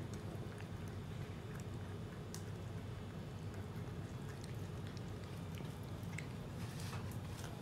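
Kittens eating wet canned cat food from a steel bowl: faint wet chewing with scattered small clicks, over a steady low hum.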